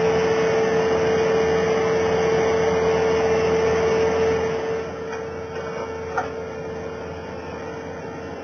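Steady mechanical running noise with a constant whine. The whine fades out and the noise drops in level about five seconds in, and a single sharp click comes about a second later.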